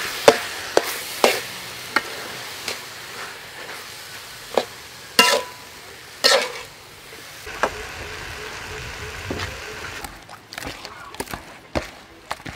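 Pea eggplants and minced meat stir-frying in a pan: a spatula scrapes and knocks against the pan every second or so over a steady sizzle. Near the end the sizzle stops and only light scattered taps remain.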